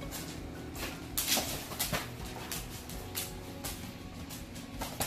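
An English Mastiff playing with a ball toy on a hard laminate floor: a scatter of sharp clicks and knocks, loudest about one to two seconds in, over faint steady music.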